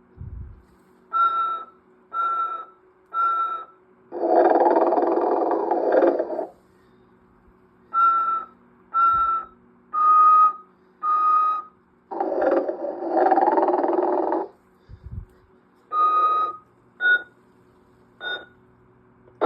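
Telco animated Santa figure's built-in snoring sound: a long snore about every eight seconds, each followed by a run of three or four short whistled tones, over a faint steady hum.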